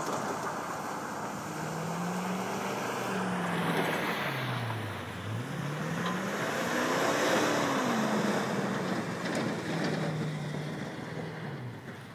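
Truck engine revving up and down while driving in mud for traction: the pitch drops low about five seconds in, climbs again about two seconds later, and falls near the end, over a steady rush of wind and tyre noise.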